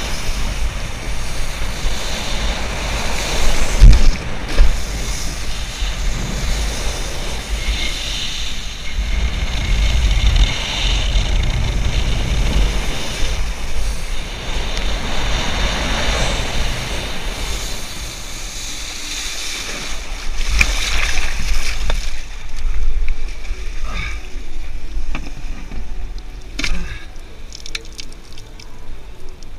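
Cable-towed wakeboard skimming across lake water, with spray hissing and wind buffeting the action camera's microphone. A few sharp knocks come near the end.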